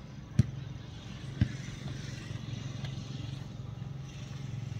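A football being kicked twice, two sharp thuds about a second apart, over a steady low vehicle hum.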